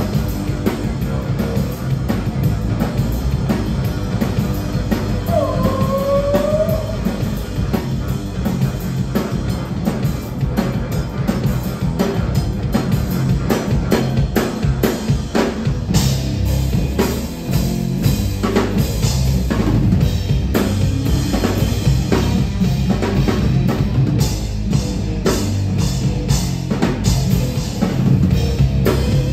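Live rock band playing an instrumental passage on electric guitar, bass guitar and drum kit, with heavy bass and prominent drums.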